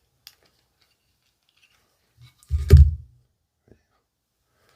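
Small plastic action-figure parts being handled, with a few light clicks, then a single dull thump about two and a half seconds in.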